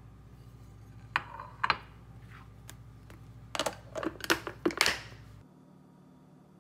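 A glass food container knocking on the counter, then a quick run of sharp clicks as its plastic snap-lock lid is pressed on and clipped shut, over a low steady hum.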